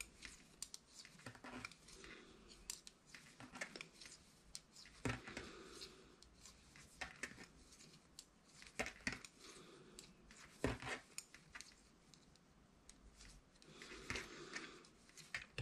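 Soft, irregular clicks and scrapes of metal knitting needles as stitches are knitted by hand.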